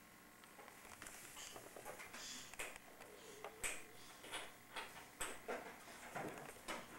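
Scattered light clicks and taps of small plastic toys being handled, a few each second, quiet and irregular.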